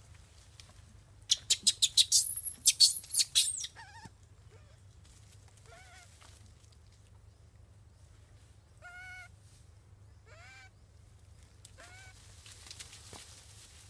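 Animal calls: a burst of loud, sharp, high-pitched shrieks and squeals about a second in, lasting a couple of seconds. Four short, quieter calls follow, spaced a few seconds apart.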